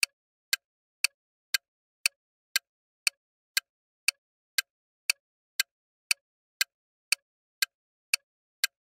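Countdown-timer sound effect: a clock ticking, two sharp ticks a second with silence between them.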